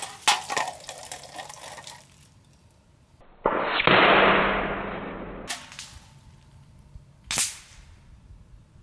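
Shots from an FX Monsoon PCP air rifle hitting soda cans. A sharp crack a moment in is followed by hissing spray from a punctured can, then a second burst of spraying hiss starts suddenly about three and a half seconds in and fades over two seconds. A single sharp shot comes near the end as a metal knock-over target is hit.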